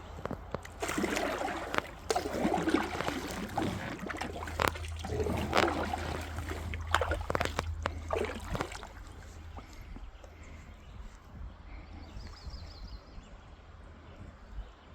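Water sloshing and splashing against a kayak, with a few sharp knocks, busiest for the first eight or nine seconds and then easing to a softer trickle.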